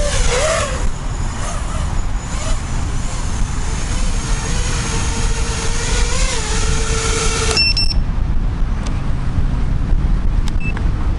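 FPV racing quadcopter's motors and propellers whining, the pitch wavering with throttle as it flies low. The whine cuts off suddenly about three quarters of the way through as the quad lands and the motors stop. A low wind rumble runs underneath.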